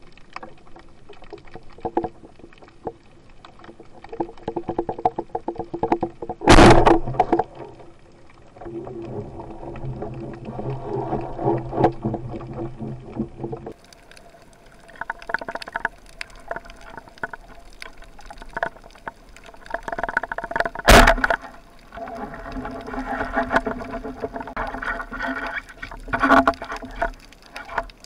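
Underwater, a band-powered speargun fires with a sharp crack about six and a half seconds in and again about 21 seconds in, each followed by a few seconds of louder water commotion as a speared grey mullet struggles. Between shots there is a steady underwater hum and crackle.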